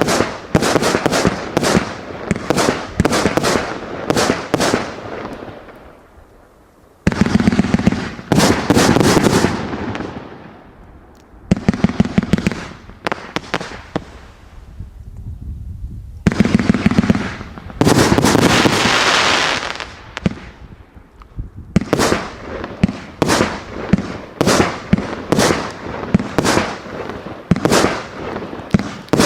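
A multi-shot fireworks cake (200-shot battery of 0.8 to 1.2 inch tubes) firing shot after shot, about two or three sharp reports a second. Twice the firing thickens into a dense stretch of rapid pops and hiss, with a few brief lulls between runs.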